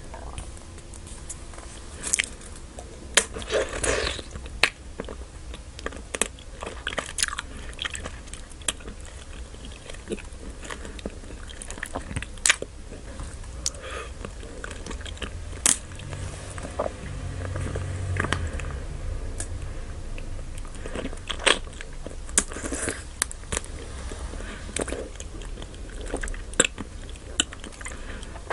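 Close-miked biting and chewing of Nik-L-Nip wax bottle candy, with many irregular sharp snaps as the wax is bitten.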